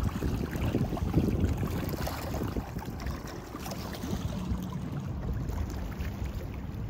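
Small lake waves lapping and sloshing against shoreline rocks, with wind rumbling on the microphone.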